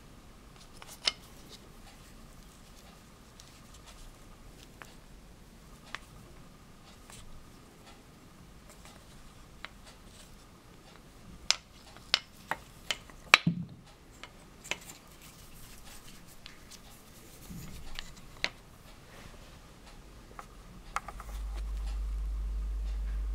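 Turned wooden pieces knocking and clicking as they are handled and set down on the lathe bed, with a quick run of sharp knocks about halfway through. Near the end a steady low rumble starts, then cuts off suddenly.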